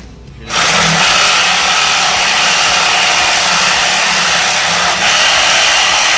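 Reciprocating saw with a long, fine-toothed blade starting up about half a second in and running steadily as it cuts through a pallet.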